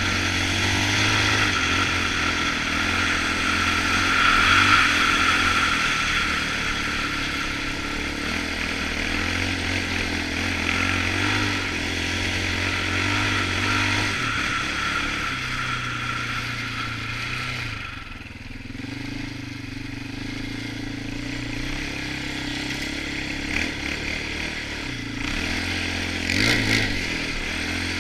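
A Polaris Outlaw 525 ATV's KTM-built single-cylinder four-stroke engine running under way, its note rising and falling with the throttle. It eases off about two-thirds of the way through and gives a short rev near the end.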